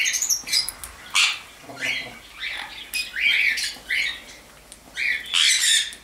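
Sun conures squawking: a quick string of short, shrill, harsh calls, about two a second.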